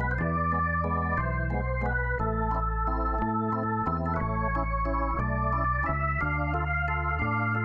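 Background music: held keyboard chords, organ-like, over low bass notes, the harmony changing about once a second.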